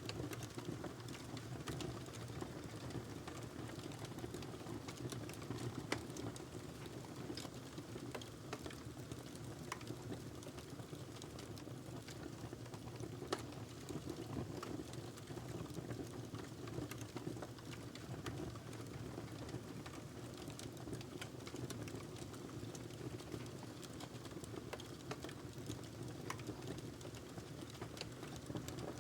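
Wood fire in a fireplace crackling steadily, with scattered small pops and two louder snaps about six and thirteen seconds in, over a low constant rush of the burning log.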